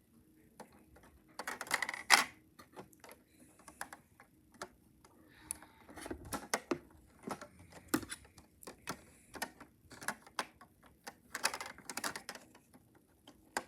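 LEGO plastic pieces clicking and rattling as they are handled and pushed into a tight spot in the model: irregular sharp clicks, with louder bunches about two seconds in, around six seconds and again near the end.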